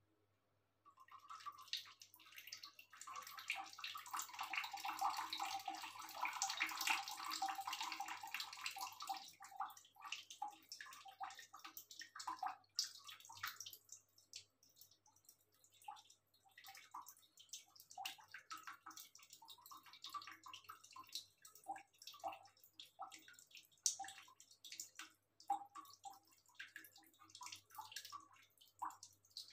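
Cat lapping water from a plastic basin, the water splashing and dripping. It starts about a second in, with a denser spell of splashing for the first several seconds, then scattered drips and laps.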